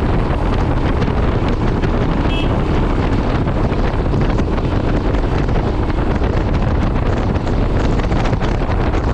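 Wind buffeting a motorcycle-mounted action camera's microphone at riding speed, with a Royal Enfield Himalayan's single-cylinder engine running underneath. The sound is steady and unbroken.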